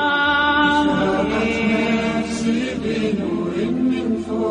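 Arabic Islamic nasheed sung by voices without instruments, drawing out long held notes between lines of the lyrics.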